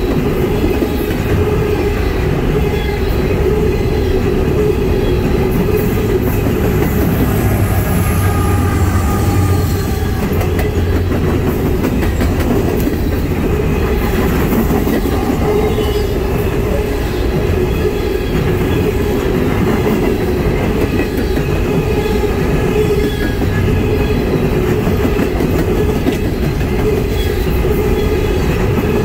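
Empty coal cars of a freight train rolling past close by: a steady rumble and rattle of steel wheels on the rails.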